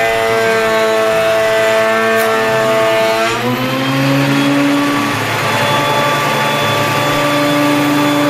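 DeWalt benchtop thickness planer running as a board feeds through: the motor's pitch sags slowly under load for about three seconds, then rises back when the cut ends. The motor then runs steadily without load.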